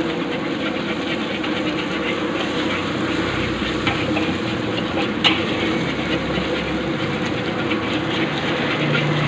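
Metal spatula scraping and tapping against an aluminium wok during stir-frying, over a steady frying hiss, with one sharper knock about five seconds in.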